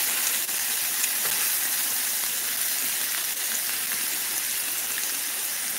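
Raw meatballs sizzling in hot oil in a frying pan: a steady hiss with scattered small crackles.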